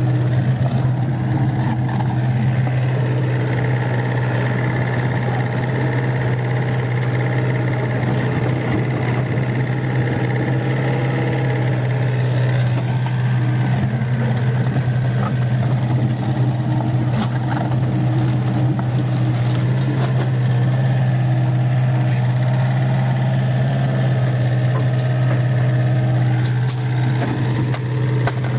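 Kobelco SK50P mini excavator's diesel engine running steadily under work, with a higher whine above it that shifts in pitch.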